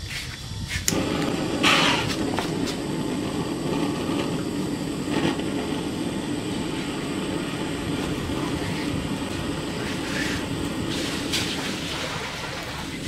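Hand-held gas torch on an LPG canister: a few clicks, then the flame catches about a second in and burns with a steady hiss, with a few brief louder bursts.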